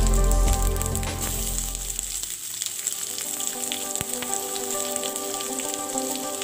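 Sliced onions sizzling as they fry in hot oil with garlic and curry leaves in a kadai; the sizzle grows stronger about a second in as the onions go into the oil.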